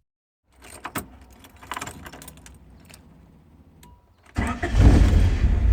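Keys jingling with light clicks, then about four seconds in a car engine cranks, catches and runs loudly with a low rumble.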